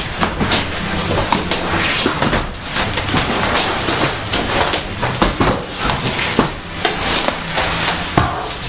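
Bubble wrap and plastic film crinkling and rustling, with cardboard flaps scraping, as a large wrapped parcel is unpacked by hand. Dense crackle full of small pops and clicks throughout.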